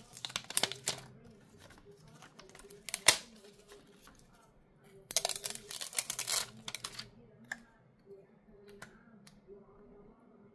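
Light handling noises of a replacement phone screen being opened: scattered clicks and taps, a sharp click about three seconds in, and a second or two of rustling and scraping from about five to seven seconds in.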